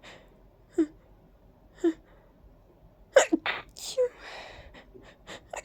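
A person sneezing in a ragweed allergy fit: two short catching breaths about a second apart, then a sharp cluster of sneezes a little past halfway, trailing off into a breathy hiss.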